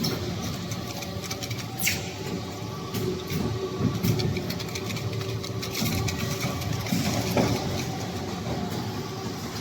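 Snack-chip processing machinery running with a steady mechanical hum, with irregular sharp clicks and knocks over it.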